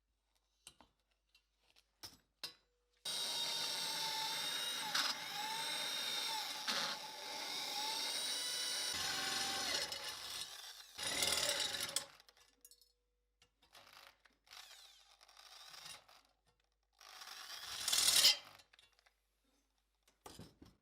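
Electric power tool, most like a drill, running for several seconds on metal, its motor tone dipping and recovering a few times as it takes load. It is followed by two shorter bursts of running.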